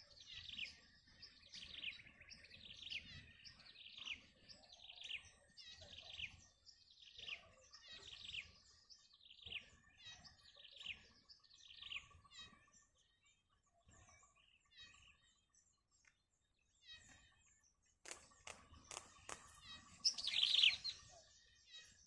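A nestling bittern's chirps: a steady run of short falling chirps about once a second, fading after roughly twelve seconds. A few sharp clicks and one louder chirp come near the end.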